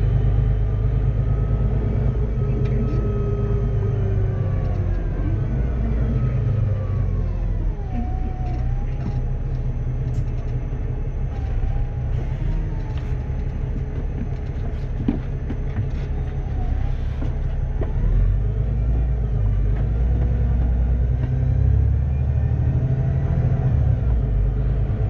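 VDL DB300 double-deck bus with a Cummins ISBe 6.7-litre six-cylinder diesel and Voith DIWA automatic gearbox, running with a heavy low rumble. Engine and driveline whines fall and rise again as the speed changes, with a few light rattles.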